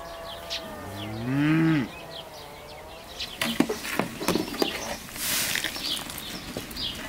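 A cow moos once, a call about a second long that rises and then falls in pitch, with small birds chirping around it. A few light clicks and a brief rustle follow in the second half.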